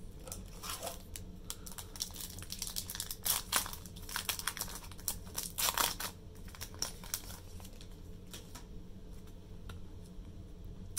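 A foil Pokémon booster-pack wrapper being crinkled and torn open by hand: a flurry of crinkles and rips over the first seven seconds or so, thinning to occasional light rustles after that.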